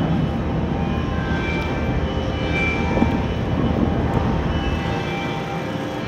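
Amplified sewing machine fed through a mixer, making a steady, dense mechanical drone with short high tones scattered through it; the deep low end drops out near the end.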